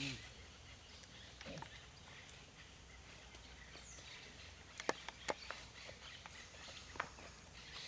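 Hooves of a young horse and a man's footsteps on packed dirt as the horse is led off at a walk, a few sharp knocks about five and seven seconds in over faint outdoor background.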